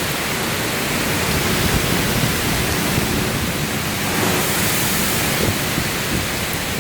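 Steady rushing roar of Tropical Storm Pabuk's wind and driving water.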